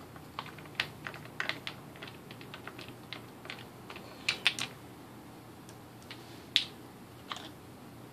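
Hard plastic clicks and rattles as the bump head of a Murray M2500 string trimmer is twisted apart by hand and its cover pulled off the spool. The clicks are short and unevenly spaced, with a couple of louder snaps about four and a half and six and a half seconds in.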